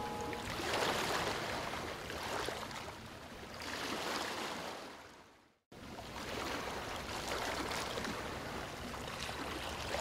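Waterfall splashing into a pool, a steady rushing of water that swells and ebbs. It fades out to a moment of silence about halfway through, then starts again.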